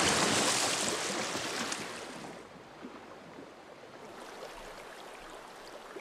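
Rushing river water, loud at first, then fading over about two seconds to a quieter, steady flow.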